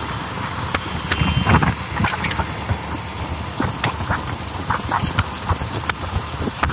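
Riding noise of a motorbike heard from the rider's handheld phone: engine hum, wind and road noise, with frequent irregular knocks and rattles. A brief faint high tone sounds about a second in.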